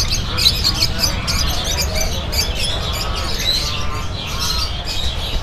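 Many small cage birds chirping and twittering together, a dense stream of quick, high, overlapping chirps, over a low steady rumble.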